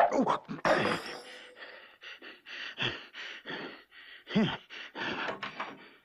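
A man's gruff voice snickering and panting in short breathy bursts, with a brief voiced grunt that falls in pitch about four and a half seconds in.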